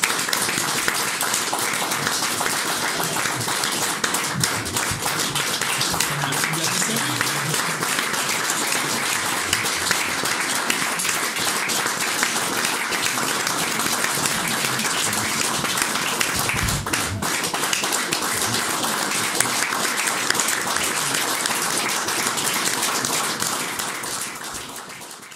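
Audience applauding steadily, a dense patter of many hands clapping, which fades out near the end.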